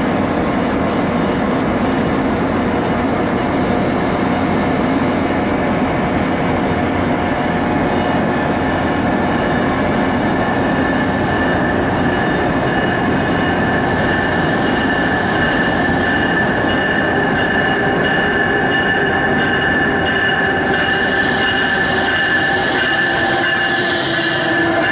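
Amtrak ACS-64 electric locomotive and its train rolling in along the platform track, steel wheels squealing on the rails with steady high-pitched tones over a loud rumble. It grows brighter and louder near the end as the locomotive passes close by.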